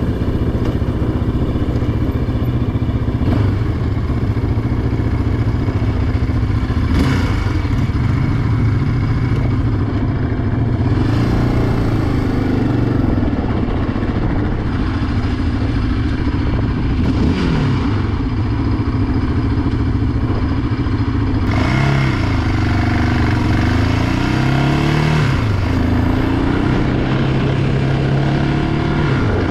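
Yamaha Raptor 700R quad's single-cylinder four-stroke engine running under way. The engine note rises and falls several times as the throttle is opened and eased.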